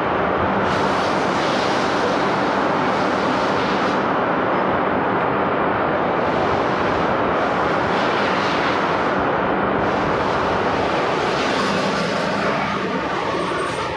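Steady loud din of machine tools running in a machine shop, an even mechanical noise with a faint steady hum underneath. Background music starts to come in faintly near the end.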